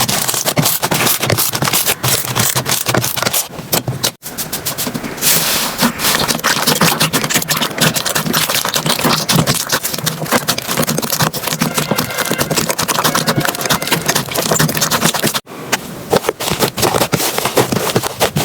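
Hands squeezing, poking and stretching slime, giving dense wet crackling and popping. It breaks off briefly twice, about four seconds in and again near fifteen seconds.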